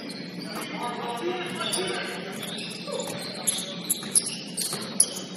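Basketball game sounds echoing in a gym: a murmur of players' and onlookers' voices, high-pitched sneaker squeaks on the court, and a few sharp bounces or knocks about three and a half to five seconds in.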